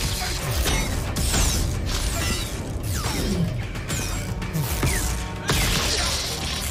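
Film fight sound effects: repeated falling whooshes and sharp clashing impacts as staffs strike glowing energy shields, with music underneath.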